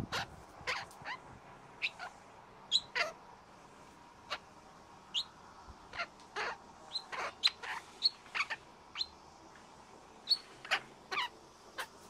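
Birds calling: about twenty short, sharp, high chirps and squeaks, scattered irregularly.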